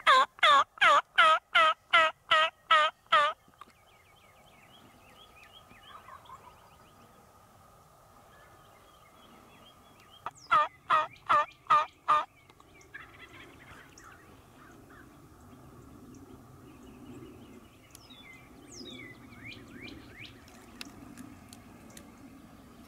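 Turkey yelping: a loud run of about ten evenly spaced notes, then a shorter run of about six notes some ten seconds in. Faint small bird chirps in between.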